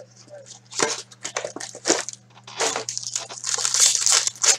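Foil wrapper of a hockey card pack being torn open and crinkled by hand, a run of sharp crackles that grows denser in the second half. A low steady hum runs underneath.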